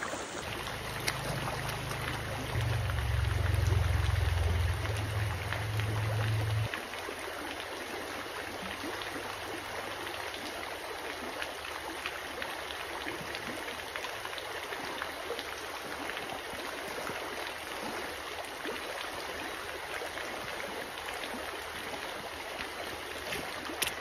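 Creek water running over a stony riffle: a steady rush of flowing water. For the first six or seven seconds a low rumble lies under it, then stops abruptly.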